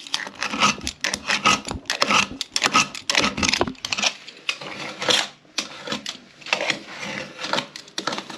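Utility knife blade scraping and cutting through white silicone caulk along a toilet's base where it meets the tile floor, in quick, irregular strokes.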